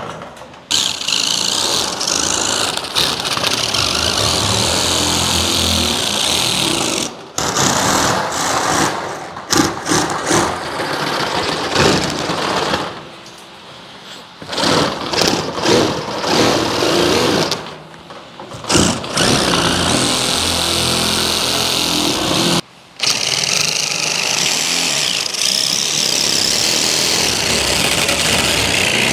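A cordless DeWalt impact driver fitted with a metal shear attachment runs in long stretches as it cuts corrugated steel roofing tin, stopping briefly a few times.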